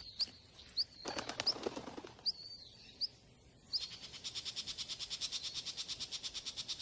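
Small songbird calling: a string of sharp, high upward chirps about once every 0.7 seconds, then, a little over halfway through, a fast buzzy trill of about ten notes a second that runs for roughly three seconds.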